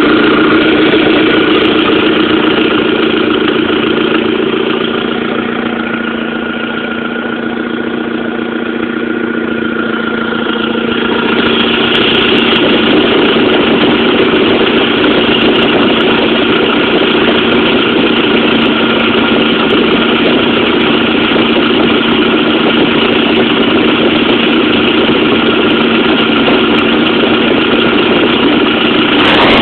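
Audi 1.8T turbocharged four-cylinder engine idling steadily with an exhaust leak, which the owner takes for a leaking exhaust manifold. The sound dips a little about five seconds in and comes back louder and brighter from about eleven seconds in.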